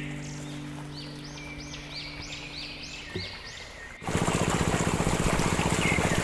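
Small birds chirping in repeated rising-and-falling calls over a steady low tone that fades out about three seconds in. About four seconds in, a loud small engine cuts in suddenly and runs steadily with a fast, even pulsing.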